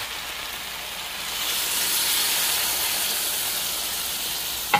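Soy-based cornstarch slurry poured into a hot wok of stir-fried beef and peppers, sizzling and hissing. The hiss swells about a second and a half in and holds steady, with a short knock near the end.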